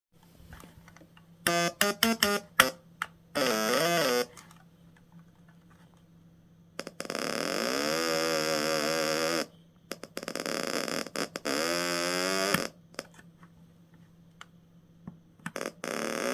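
Stylophone played with a bare finger on its metal keyboard instead of the stylus: buzzy electronic notes that crackle in and out as contact comes and goes. It has several longer tones whose pitch wobbles and slides, and a low hum in the gaps.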